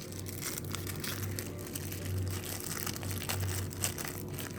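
Packaging crinkling and rustling in irregular bursts as a gift of compression socks is unwrapped by hand, over a steady low hum.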